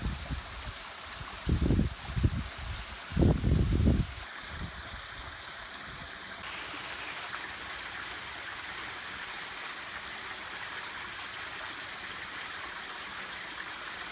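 A small mountain stream trickling over rock: Silver Cascade shrunk by drought to a thin flow of water. It makes a steady, even water sound that grows brighter about six seconds in. A few loud, low thumps come in the first four seconds.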